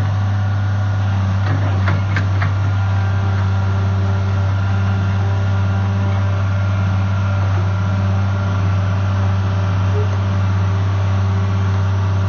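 Komatsu PC220 tracked excavator's diesel engine idling steadily, with a few light clicks about two seconds in.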